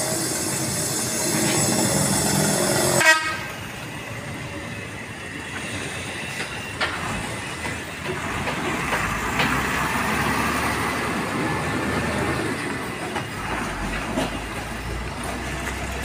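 A heavy truck's horn held on a steady note, cut off suddenly about three seconds in, followed by diesel trucks running and moving in busy street traffic.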